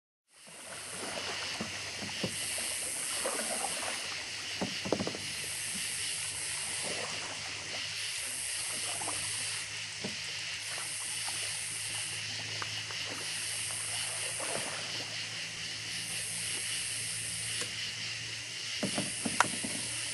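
Night insects calling: a steady high hiss with a louder high-pitched chorus that swells and fades about every two seconds. A kayak paddle dips and splashes, with a few sharp knocks against the hull, the loudest near the end.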